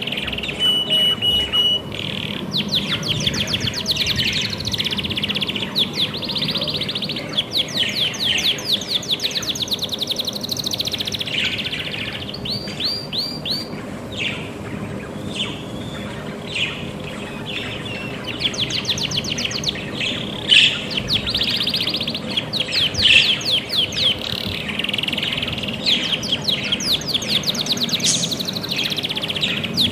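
Budgerigars chirping continuously, with rapid rattling runs of short chirps and a brief steady whistle-like note about a second in.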